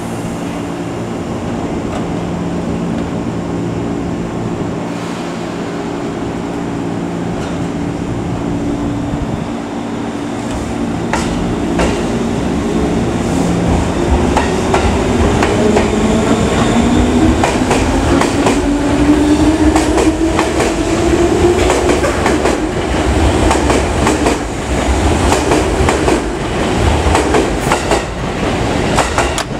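JR 205 series electric commuter train departing: a steady hum while it stands, then about halfway through a rising motor whine as it accelerates away. Through the second half, wheels click repeatedly over rail joints as the cars pass.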